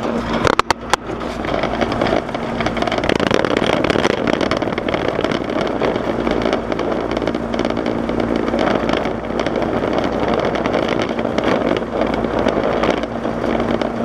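Steady machine hum with a rushing noise over it, and a few sharp knocks in the first second.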